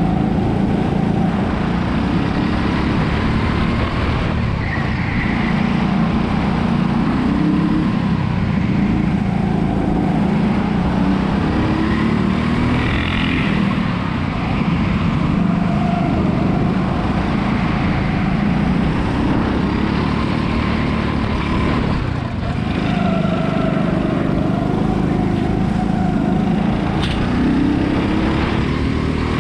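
Go-kart engine running under hard throttle, its pitch rising on the straights and dropping as it eases off for corners, heard close up from the driver's seat.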